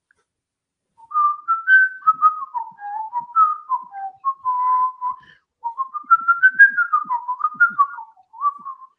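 A person whistling a tune, notes stepping up and down, starting about a second in with a short break partway through.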